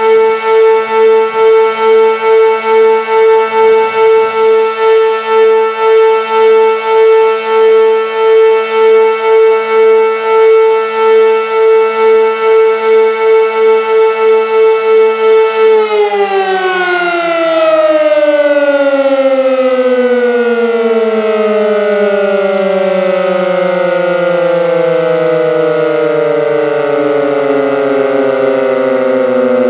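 Sentry 16V1T-B tornado siren sounding a steady alert tone, its loudness swelling and fading about twice a second. About halfway through it cuts out and winds down, the pitch falling steadily.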